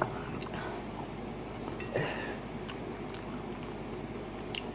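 A person chewing a mouthful of food close to the microphone, with a few small clicks.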